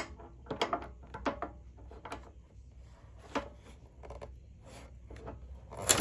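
Irregular clicks, knocks and rattles of metal furnace parts and tools being handled, with a louder knock near the end.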